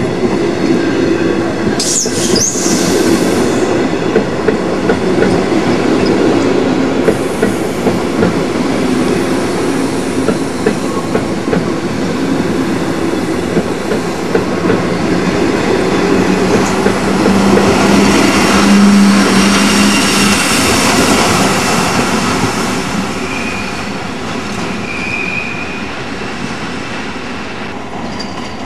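SBB passenger coaches rolling along a station platform, wheels clattering over the track, with a brief high wheel squeal about two seconds in. A low steady hum joins for a few seconds past the middle.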